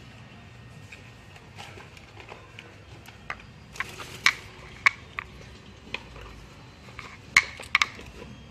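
A metal-cased HID ballast and its plastic connector knocking and clicking against a hard surface as it is handled and set down: a string of sharp taps in the middle, then three close knocks near the end.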